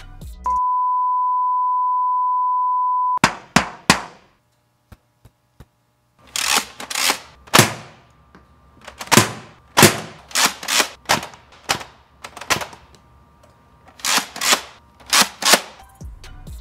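A steady, loud high beep held for about three seconds, then a Nerf TwinShock blaster firing: sharp shots in quick clusters, three at first, then a long run of them, then a last group near the end.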